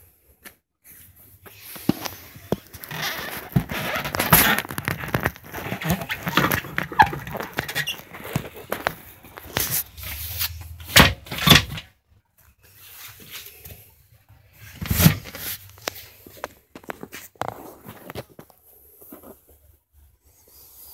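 Handling noise from school bus seats being rearranged: rustling and scraping of the vinyl cushions, with several sharp knocks from the seat parts and metal frame.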